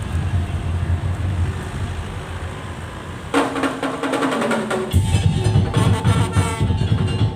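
A steady low rumble, then tong-tong (daul) percussion music starting suddenly about three seconds in: quick wooden strikes and drums with some pitched tones, joined by a heavy bass beat about five seconds in.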